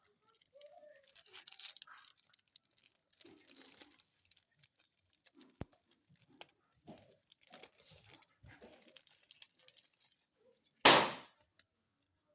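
Packaging being handled, with scattered rustling and crinkling, then one loud short tearing sound near the end as it is ripped open.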